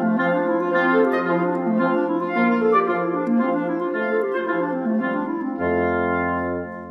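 Instrumental music: a melody of short stepping notes over a steady low note, ending on a long held chord with a deep bass note from about five and a half seconds in, which fades at the very end.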